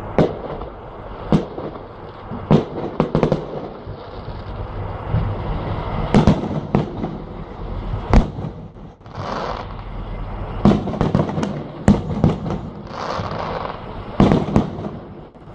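Fireworks display: aerial shells bursting in a series of sharp bangs at irregular intervals, about a dozen, some coming in quick clusters.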